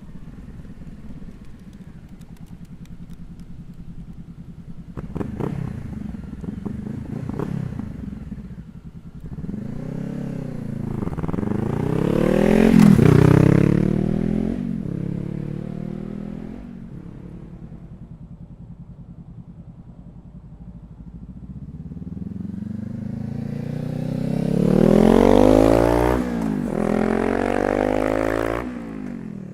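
Honda CBR500R's parallel-twin engine through an open Leo Vince GP Corsa exhaust with no dB killer, accelerating past twice. Each pass climbs in pitch to a loud peak and then fades, once near the middle and again near the end.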